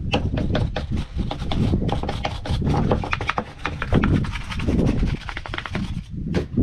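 Scraping and rubbing on a chainsaw as it is cleaned of sawdust and chips, a quick, irregular run of small clicks and scrapes over a low rumble of handling.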